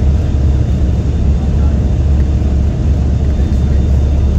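Hovercraft running steadily at cruise across the water, heard from inside the passenger cabin as a loud, even drone with most of its weight in a deep hum.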